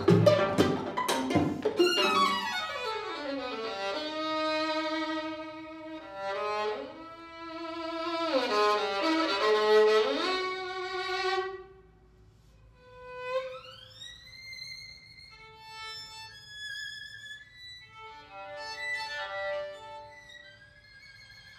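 String quartet playing contemporary music: loud, sharp chord stabs at the start, then bowed strings sliding down and up in long swooping glissandi. About twelve seconds in it almost stops, then one violin slides up to a high held note and plays scattered short, high notes.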